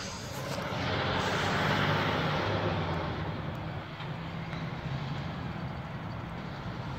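Vehicle noise: a steady low engine hum with a rush of road noise that swells about a second in and slowly fades, as of a vehicle passing by.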